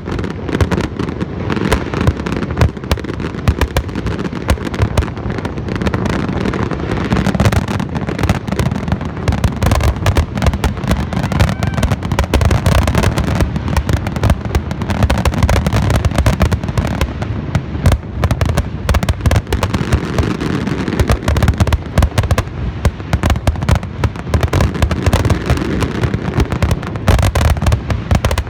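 Aerial fireworks display: a dense, continuous barrage of booming shells and crackling bursts, loud throughout.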